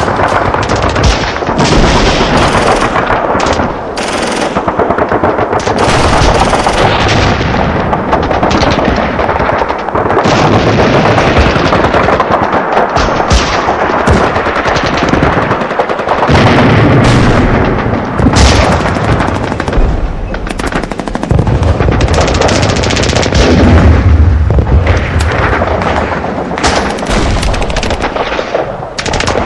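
Battle sound effects: sustained rapid machine-gun fire mixed with other gunshots. A heavy low rumble comes in about halfway through and again near the end.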